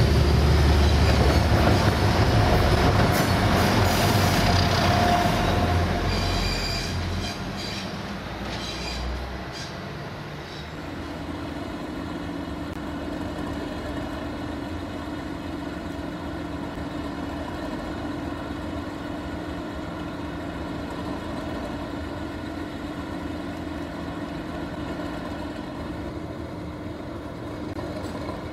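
A train hauled by Class 97 diesel locomotives passes close by: wheels on the rails and a diesel engine's heavy rumble, fading away over the first ten seconds. After that, a quieter steady diesel engine drone with a constant hum.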